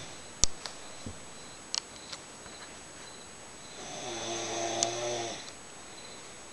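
A woman snoring in her sleep: one long, steady-pitched snore starts about four seconds in and lasts about a second and a half. A few sharp clicks come in the first two seconds, the loudest about half a second in.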